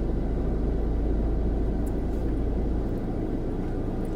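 Steady low rumble inside a car's cabin, its deepest part dropping away about three seconds in, with a few faint clicks.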